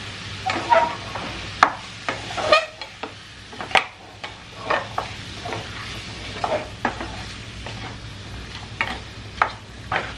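A wooden spatula stirring chicken pieces and potato chunks in a nonstick wok, making irregular scrapes and knocks against the pan over a low steady hiss.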